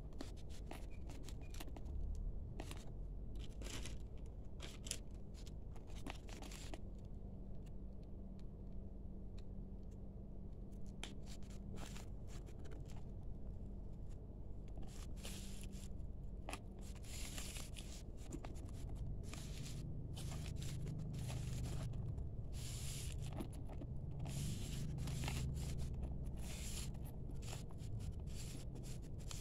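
Thin white protective wrapping rustling and crinkling as hands pull it off a faux-leather handbag's chain fittings and handle, in irregular crackles that grow busier in the second half.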